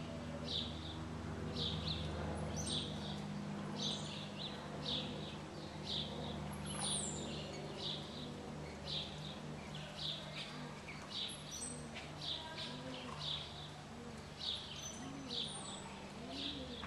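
A bird chirping over and over, about two short chirps a second, with a few higher sliding calls now and then, over a steady low hum.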